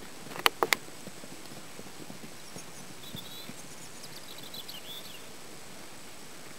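Hooves of an Appaloosa colt cantering on turf: three quick, sharp hoofbeats about half a second in, then only a faint steady hiss.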